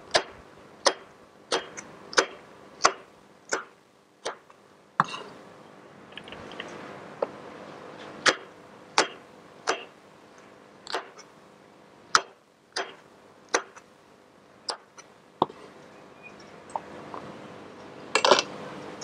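Chef's knife slicing red chillies on a plastic cutting board, the blade knocking the board in an even rhythm of about one and a half cuts a second, with a lull of a few seconds in the middle. Near the end comes a short quick clatter of knocks.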